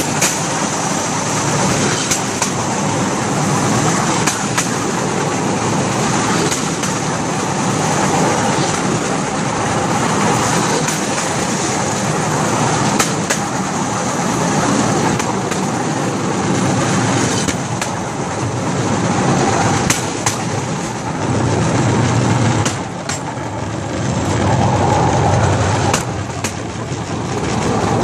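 Bamboo train (norry) running along the rails: a steady engine-and-platform rattle, with irregular sharp clicks as the wheels cross rail joints.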